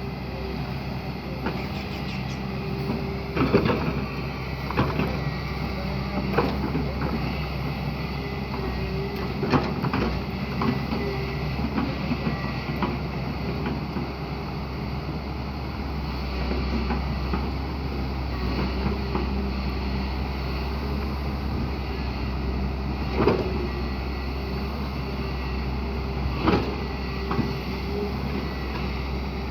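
Hyundai excavator's diesel engine running steadily under work, with a few sharp knocks and clanks spread through.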